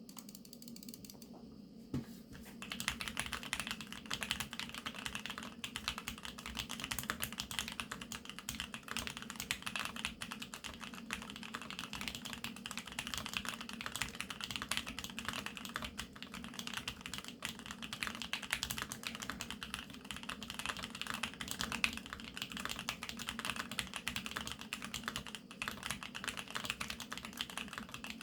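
Typing on a GEONWORKS F1-8X full-aluminium custom mechanical keyboard with factory-lubed Tangerine 67g switches, Equalz stabilizers and mStone keycaps. After a single keystroke about two seconds in, fast continuous typing starts a moment later and keeps going without a break.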